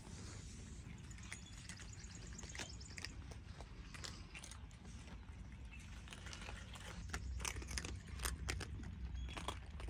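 Several cats crunching dry kibble: a run of small, sharp crunches that comes thicker and louder about seven seconds in, over a low steady rumble.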